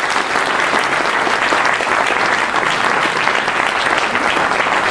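Audience applauding steadily: many hands clapping at an even level.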